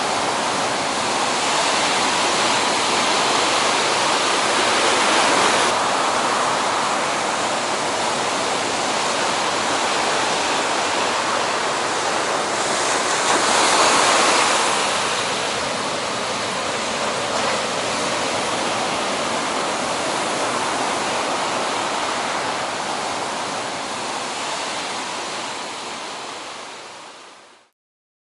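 Steady rushing roar of big ocean surf breaking, whitewater washing continuously, swelling a little about halfway through and then fading out near the end.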